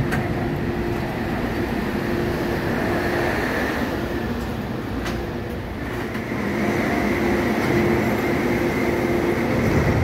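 MTR Tung Chung Line train running into the station platform: a steady rumble of the moving train with a constant hum and a higher whine that grows stronger about six seconds in.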